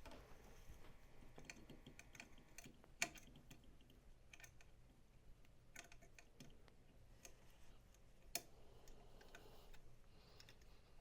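Faint, scattered small clicks and taps of an Allen key working the mounting screws, with two sharper clicks about three seconds and eight seconds in.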